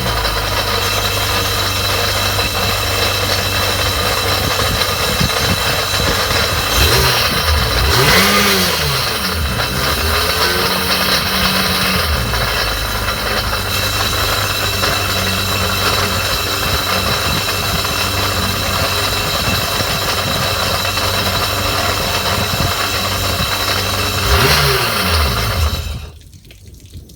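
2001 Sea-Doo personal watercraft's two-stroke engine and jet pump running at a steady idle, revved up and back down twice, then shut off near the end. The pump is suspected of making an abnormal noise.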